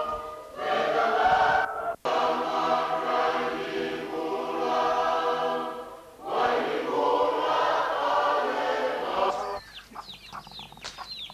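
A congregation of many voices singing a hymn together, with an abrupt break about two seconds in where the recording cuts. The singing ends near the end, giving way to chickens clucking and chirping.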